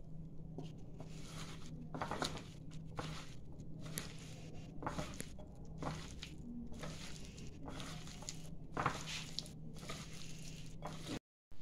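A hand squishing and kneading cauliflower florets in a wet cornflour-and-flour batter in a steel bowl: irregular soft squelches and rubs over a steady low hum.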